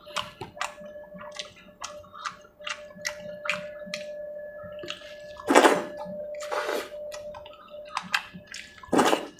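Close-up eating sounds: wet squelching and smacking as fingers work chicken pieces through thin curry gravy, with mouth sounds in many short wet clicks. Two louder, longer wet sounds come about halfway and near the end.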